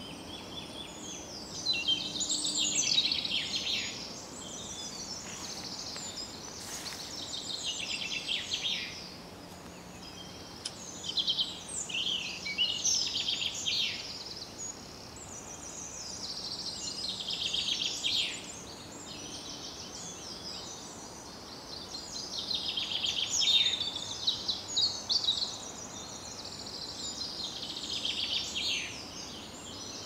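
Woodland dawn chorus: a nearby common chaffinch sings its short, falling song phrase again and again, every few seconds, over a background of other birdsong that includes wren and robin.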